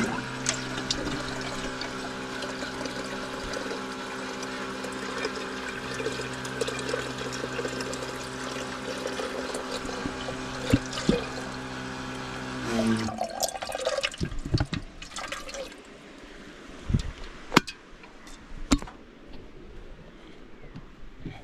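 Water running into a kettle as it is filled, with a steady hum under the flow. It starts suddenly and cuts off abruptly about thirteen seconds in, followed by a few scattered knocks and clicks.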